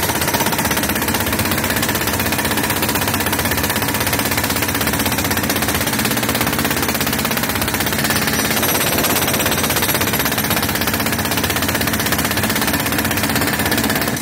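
Pneumatic jackhammer breaking up a concrete floor, a steady, rapid rattle of blows without pause. The breaker is driven by compressed air from a tractor-powered compressor.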